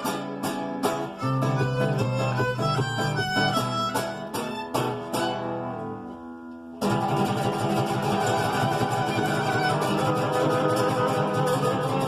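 Instrumental music: a run of plucked string notes for about six seconds, a brief drop in level, then a violin comes in with sustained bowed notes.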